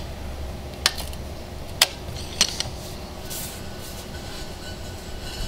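Three sharp metal clicks in the first two and a half seconds over a steady low rumble, as a diamond core bit is threaded onto a core drill's spindle by raising the motor head along the drill stand.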